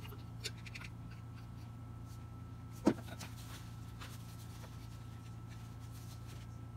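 Hand-handling noises from refilling a printer's ink tank: a sharp click just under three seconds in, then soft rubbing and rustling of a gloved hand wiping with a paper towel, over a steady low hum.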